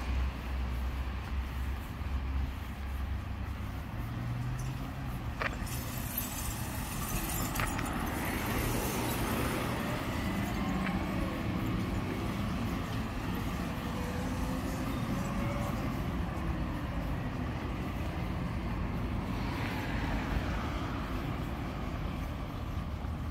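Street traffic: cars passing on a town road, a steady engine hum with tyre noise that swells and fades. Two sharp clicks come between about five and eight seconds in.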